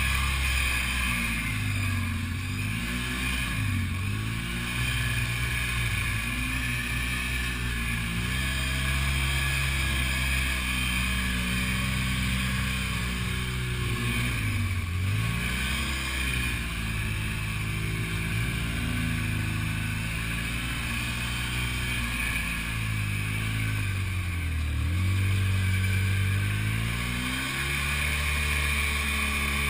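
Side-by-side off-road buggy's engine running under varying throttle, heard from inside the cab. The engine note rises and falls throughout and drops sharply several times as the throttle comes off, then climbs again, over a steady hiss.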